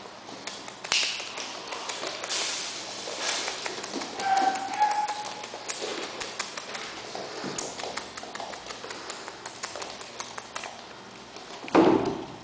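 Many small ticks and taps as a litter of month-old miniature schnauzer puppies scamper over a wooden floor, their claws clicking on the boards. A short high whine about four seconds in, and a louder sound near the end.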